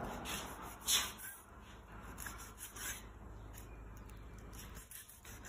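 Kitchen knife scraping and slicing along an eel fillet against a wooden chopping board: a run of rasping strokes, the loudest about a second in.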